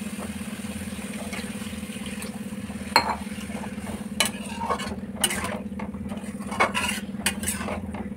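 Metal spatula scraping and clinking against a metal kadai as whole small brinjals in watery masala gravy are stirred: a few sharp strokes from about three seconds in, over a steady low hum.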